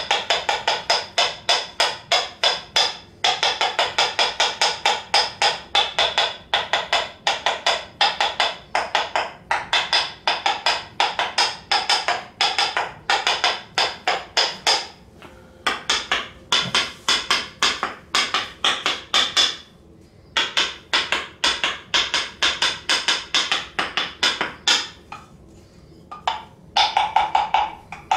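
Percussive massage strikes: rapid, hollow, wood-block-like knocks, several a second, in runs broken by a few short pauses.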